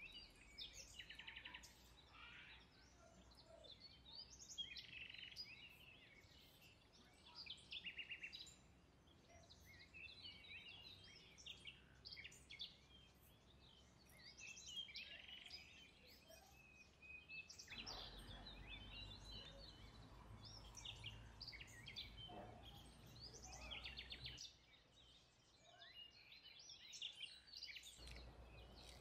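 Faint songbird chirping: many short, high chirps and twitters from several birds, with a low background rumble for a few seconds in the second half.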